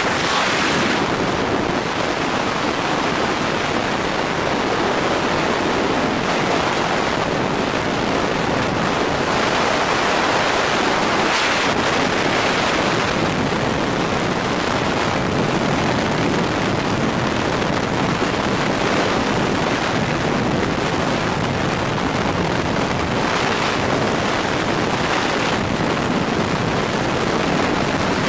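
Freefall wind rushing over a skydiving camera's microphone: a steady rush of air that swells slightly now and then.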